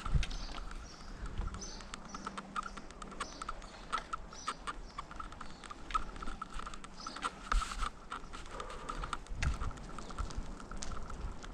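Road bike's rear freewheel hub ticking rapidly and unevenly as the bike coasts, with short high chirps now and then.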